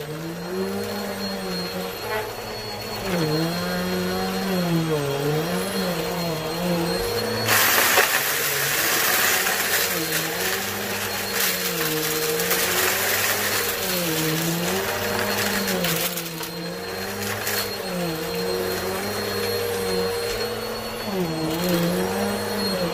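Shark vacuum cleaner running and sucking up spilled carpet powder and small debris. The motor's pitch dips and rises every second or two as the load on the nozzle changes. A louder rushing hiss runs through the middle stretch.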